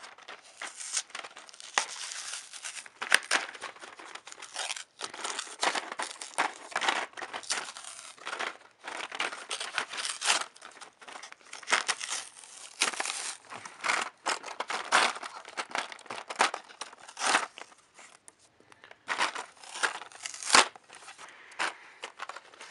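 Thomas Minis 7-pack toy packaging being torn open by hand: irregular crinkling and tearing, with a short lull about three-quarters of the way through.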